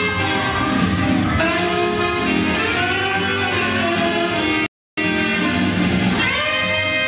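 Dance music with melody instruments playing at a steady level. The sound cuts out completely for a split second about two-thirds of the way in.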